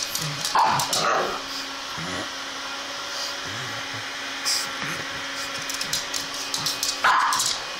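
Pug snorting and scuffling as it noses and paws at a mattress zipper. There are sharp clicks throughout and a louder burst about half a second in and again near the end, all over a steady background hum.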